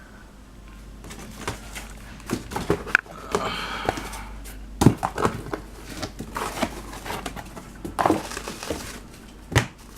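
Cardboard shipping box being handled and opened: irregular knocks, scrapes and rustling, with the loudest knock about five seconds in.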